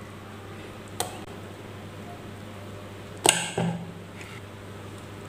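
Steel ladle knocking against stainless-steel pots while fermented appam batter is ladled across: a light tap about a second in, then a louder ringing clank followed closely by a second knock a little after three seconds, over a faint low hum.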